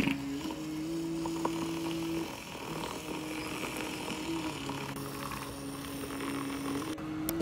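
Handheld battery milk frother whirring as it whisks a drink in a glass. Its steady hum steps up and down in pitch several times, over a light hiss.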